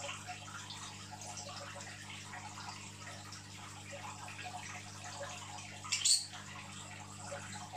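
Aquarium water trickling and bubbling steadily over a low electrical hum, with a brief louder rush of noise about six seconds in.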